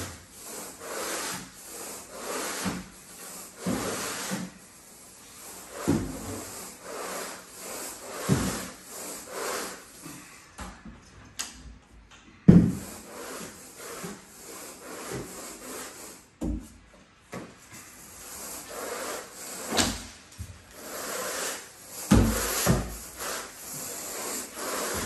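A carpet grooming rake dragged through the carpet pile in repeated rough rubbing strokes, about one every second or less. A single sharp knock comes about halfway through.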